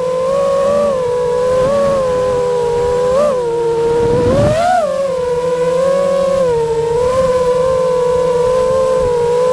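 Quadcopter drone propellers whining steadily while hovering. The pitch briefly rises twice, about three and four and a half seconds in, as the throttle changes, then holds steady.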